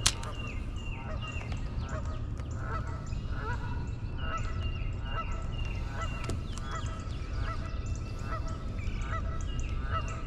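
A flock of geese honking: many short calls repeated a few times a second, overlapping, over a steady low hum. One sharp click right at the start.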